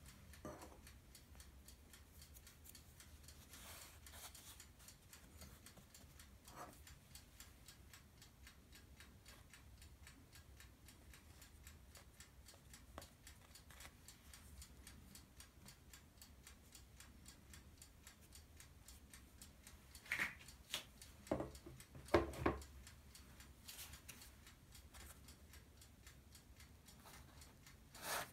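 Quiet handling of dough and tools on a wooden board: faint small ticks, then a short cluster of sharp knocks about three-quarters of the way through, with one more near the end.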